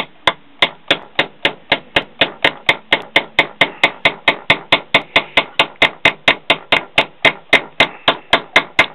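Small hammer tapping a stainless steel nail into a wooden window frame: rapid, even taps, about three to four a second, with no let-up.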